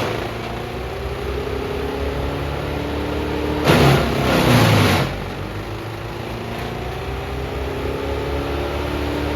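Perkins 1104E diesel of a Morbark M14 drum chipper running steadily, its pitch creeping slowly upward. About four seconds in comes a loud rushing burst lasting about a second and a half.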